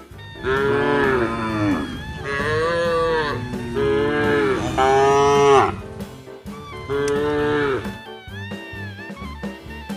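Cattle mooing, about five long arching calls one after another in the first eight seconds, over background music.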